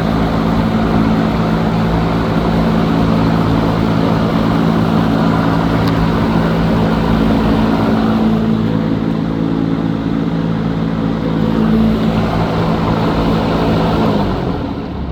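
Electric fan running with a steady motor hum and rushing air. About 14 seconds in it is switched off, and the hum drops in pitch as it starts to wind down.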